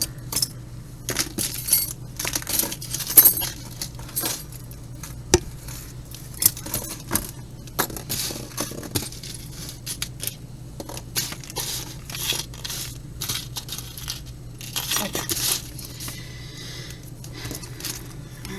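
Small pieces of jewelry clinking and jangling as they are picked up, sorted and set down on a table: a string of irregular light clicks and metallic and glassy chinks, with a steady low hum underneath.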